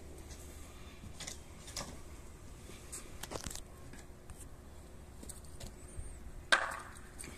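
Faint scattered knocks and scrapes of a wooden block being handled on asphalt at a car's front wheel, with one sharper knock about six and a half seconds in, over a low steady hum.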